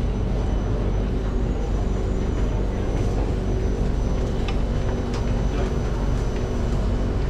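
Steady low hum of a Singapore MRT Circle Line train standing at the platform with its doors open, over the echoing noise of the station, with a few faint clicks.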